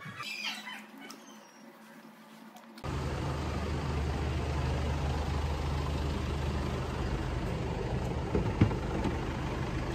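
Steady low engine rumble of a motor vehicle running, coming in suddenly about three seconds in after a quiet stretch.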